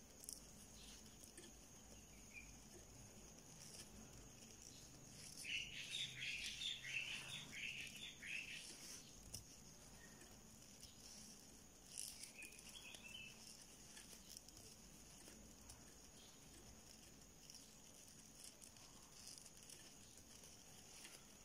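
Near silence: faint room tone, broken about five seconds in by a few seconds of faint high-pitched chirping, and again briefly about twelve seconds in.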